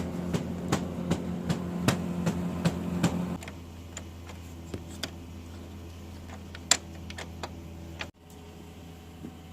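Kyocera P3260dn laser printer running with a regular knock about two and a half times a second, the sign of a fuser drive gear with a broken-off tooth. After about three seconds the hum and the steady knocking drop away, leaving a quieter running sound with a few scattered clicks.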